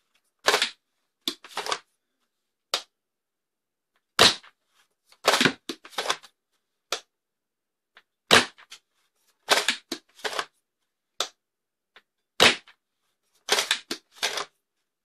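Foam dart blaster fired three times, about four seconds apart, each shot a sharp pop. Between shots come quicker clicks and clacks as the blaster is reloaded and primed.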